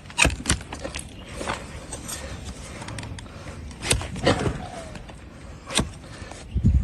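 Hoof trimming on a donkey's hard, overgrown hoof: irregular sharp cracks and scrapes as the farrier's knife cuts into the dry horn, a few seconds apart.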